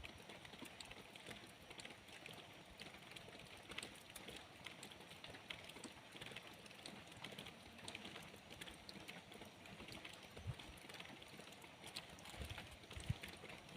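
Light rain falling, a dense patter of individual drops ticking on a surface, with a few dull low thuds near the end.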